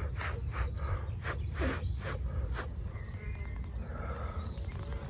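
Honeybees buzzing on and around a brood frame held close, over a low steady rumble, with a few short rustles and clicks of handling in the first couple of seconds.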